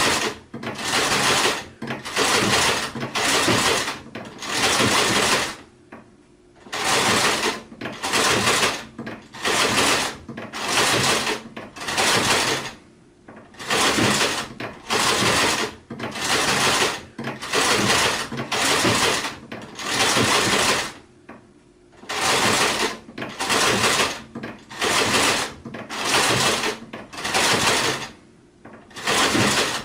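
Sewing machine stitching in short runs of under a second each, stopping and starting over and over, with a few slightly longer pauses.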